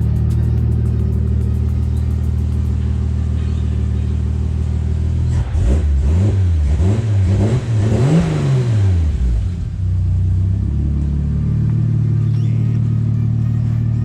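Toyota Supra JZA80's twin-turbo 2JZ-GTE straight-six idling, then blipped in a quick series of revs about halfway through before settling back to a steady idle. It is running on freshly replaced spark plugs after a no-start, and smoking much less than before.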